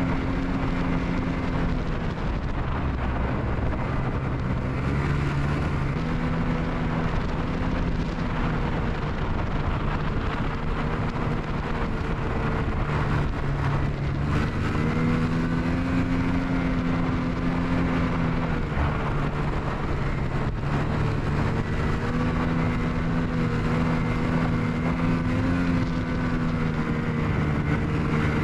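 Ski-Doo Expedition Xtreme snowmobile running along a trail, its engine note easing down and climbing back up several times as the throttle changes, over a steady rush of noise.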